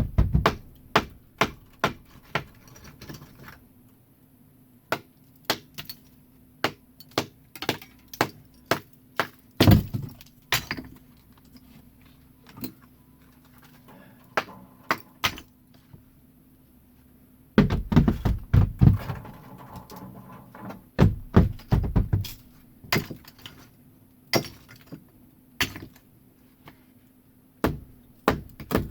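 Irregular sharp knocks and thuds of a brick chimney being demolished by hand: blows on brick and mortar breaking it loose, with a dense run of heavier strikes past the middle.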